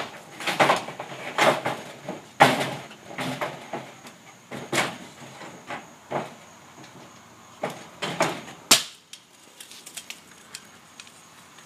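A metal kick scooter and sneakers knocking and scraping on corrugated roof panels in a run of clattering bursts. About nine seconds in comes the loudest sound, a sharp crack as the scooter lands a drop onto concrete, followed by a few light clicks.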